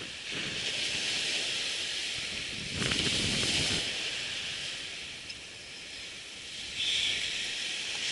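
Surf washing onto a sandy beach with wind hiss, one wave rushing in with a low rumble about three seconds in and another surge near the end.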